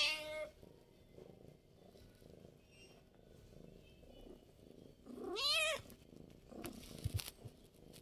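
Tabby cat close up, purring faintly, with one meow about five seconds in that rises and then falls. A few soft knocks come near the end.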